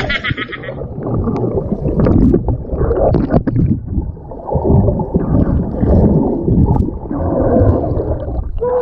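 Muffled underwater gurgling and churning of seawater and bubbles, picked up by an action camera's microphone held under the surface, so the higher sounds above the water are cut off. A few brief clicks and knocks come through the water.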